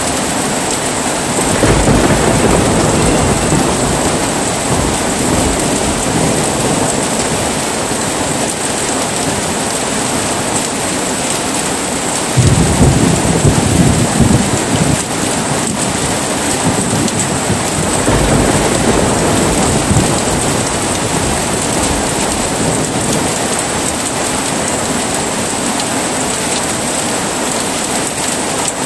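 Heavy rain falling steadily, with three deep rolls of thunder: one about a second and a half in, the loudest about halfway through, and a third about two-thirds of the way in.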